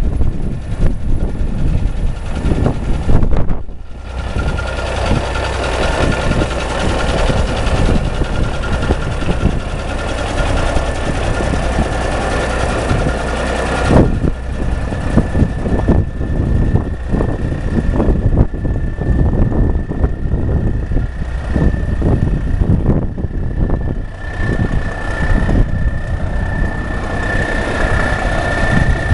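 Cummins diesel engine of a 1989 Freightliner tandem-axle wrecker idling steadily, with a thin high-pitched whine running through it.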